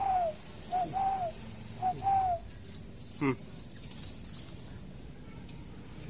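Spotted dove (tekukur) cooing three times, about once a second, each phrase a short note followed by a longer arched note. A single short, sharp sound comes about three seconds in, and thin high rising chirps from a small bird follow in the second half.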